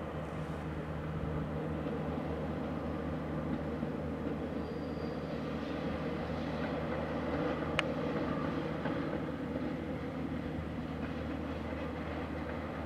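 Two-section electric locomotive running in the distance, a steady mechanical hum with a few held tones over even rail noise. A single sharp click comes about eight seconds in.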